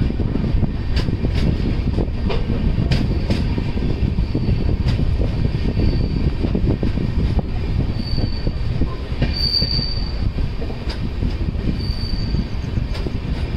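Express passenger train coach rolling along the track, heard from the open doorway: a steady low rumble with scattered clicks of the wheels over rail joints. Several short high squeals come in the second half as the train slows into a station.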